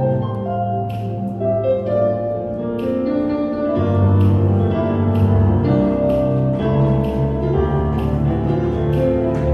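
Instrumental music: a bright keyboard melody with bell-like notes, joined by a strong bass line about four seconds in, with no singing.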